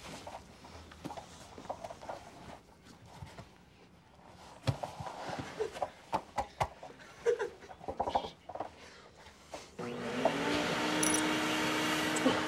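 Scattered quiet clicks and rustles of handling, then about ten seconds in a vacuum motor switches on: a steady hum that rises briefly in pitch as it spins up, with rushing air and scattered ticks.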